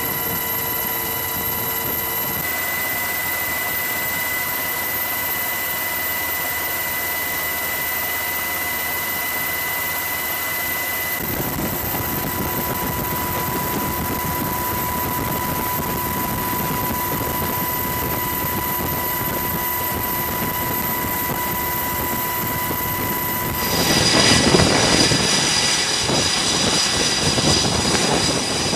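Steady aircraft engine drone with a constant high whine, its character shifting abruptly a couple of times. About 24 seconds in it gives way to louder jet engine noise from an F/A-18 Super Hornet on a carrier flight deck.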